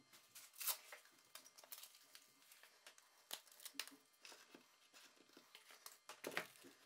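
Faint paper rustling and light clicks of a sanding disc being handled, then a cluster of knocks near the end as a Bosch random orbit sander is set into its plywood ring holder.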